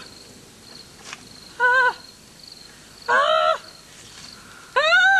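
Three short calls, each rising then falling in pitch, over a steady high chirping of crickets.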